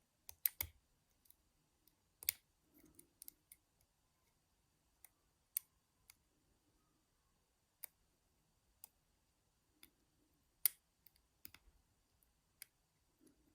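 A homemade steel pick working the pins of a six-pin Euro cylinder lock, which has spool pins: faint, irregular, separate clicks of metal on metal, with the strongest about half a second in, at about two seconds and near eleven seconds.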